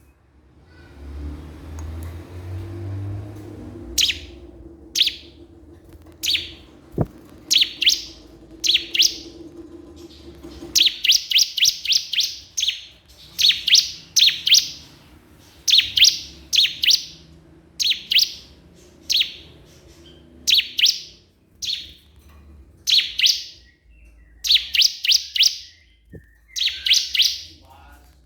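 Ciblek kristal (cikris, a prinia) singing persistently: short, rapid bursts of high chirping notes, about one burst a second, its loud calling song used to provoke rival ciblek into singing. A low rumble sits under the song for the first ten seconds or so.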